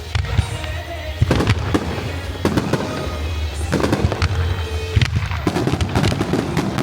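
Aerial fireworks going off in rapid succession: repeated bangs and crackling bursts, over music played along with the show.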